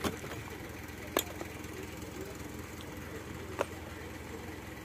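Crane engine running steadily in the background, with three sharp knocks: one at the start, one about a second in and one past three seconds.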